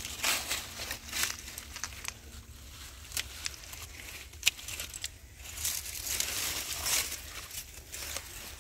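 Dry squash vines and leaves rustling and crackling as hands push through them, with several sharp clicks and snips from garden shears cutting a butternut squash stem.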